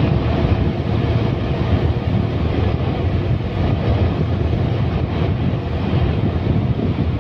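Wind buffeting the microphone of a moving vehicle: a steady, loud low rumble with the vehicle's running noise underneath.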